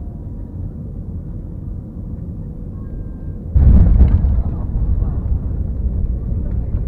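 Steady low cabin rumble of an Airbus A320-family jet on final approach. About three and a half seconds in, the touchdown comes as a sudden loud jolt, a hard landing. A loud rolling rumble of the wheels and airframe on the runway follows.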